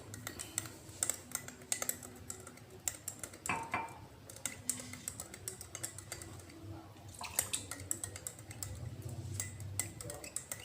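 A spoon stirring a glass of hot wedang kencur, clinking against the glass in quick, irregular taps.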